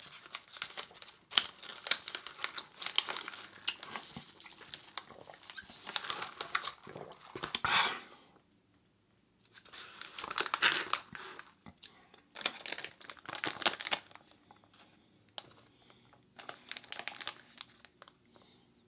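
Paper or plastic food wrapping crinkling and rustling as it is handled, in several bursts with short pauses.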